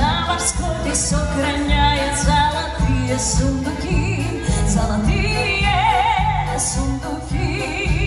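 Live female vocalist singing with vibrato, accompanied by an orchestra of violins and brass over a steady low pulse about twice a second.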